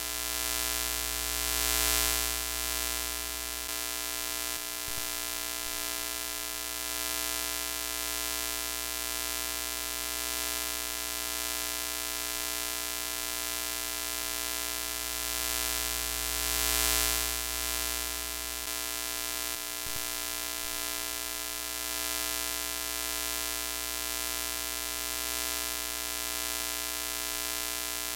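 Electrical glitch sound effect for a broken screen: a steady buzzing hum with many overtones under a hiss of TV static. It swells louder about two seconds in and again around seventeen seconds, repeating on a loop roughly every fifteen seconds.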